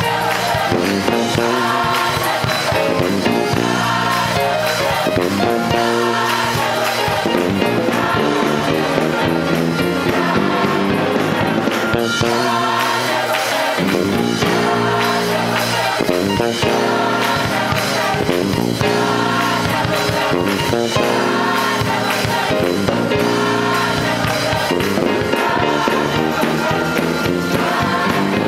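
Gospel choir singing with instrumental accompaniment.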